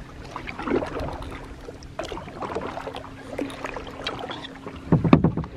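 Kayak paddling on calm water: the paddle blades dip and splash, with water dripping and trickling and light clicks. A loud low thump comes near the end.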